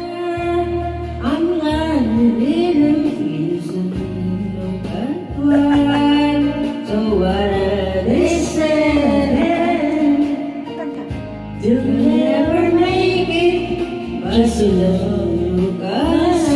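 Women singing karaoke into handheld microphones over a backing track with a stepping bass line.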